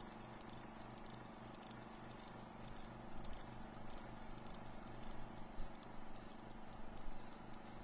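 Quiet room with a steady low electrical hum and hiss. From about three seconds in come soft, irregular smacking and rustling sounds as a man licks syrup off his fingers and rubs his face.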